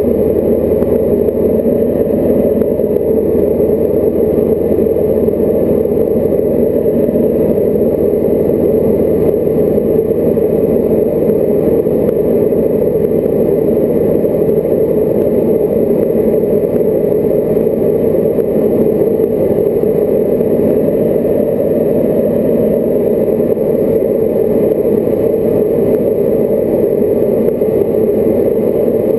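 Diamond DA40 light aircraft's piston engine and propeller droning steadily in flight, heard inside the cockpit. A deeper hum underneath fades out about nine seconds in.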